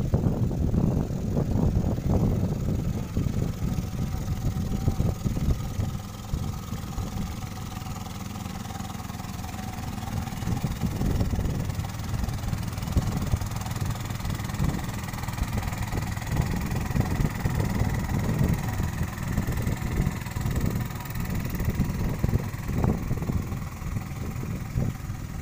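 Small boat engine running steadily as the boat crosses the flooded river, over a constant low rumble.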